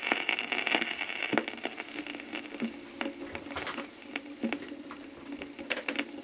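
Turntable stylus running in the lead-in groove of a red flexi-disc (sonosheet): surface hiss with many scattered crackles and pops, starting abruptly as the stylus meets the disc.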